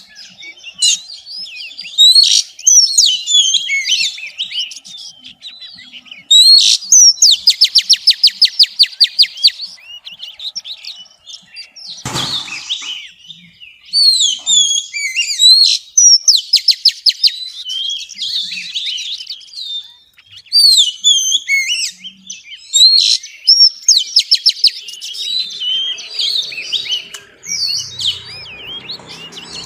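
Oriental magpie-robin singing a varied run of whistled phrases and chirps, with rapid rattling trills about seven seconds in and again around fifteen seconds in. A brief noisy burst cuts in about twelve seconds in.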